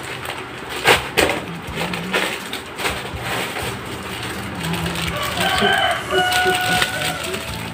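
Plastic snack packaging crinkling and rustling as groceries are handled and unpacked. About two-thirds of the way through, a held, pitched call sounds in the background, tagged as a rooster crowing.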